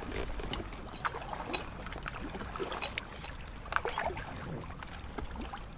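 Kayak paddling on calm canal water: irregular small splashes and drips as the paddle blades dip in and come out, over a steady low background.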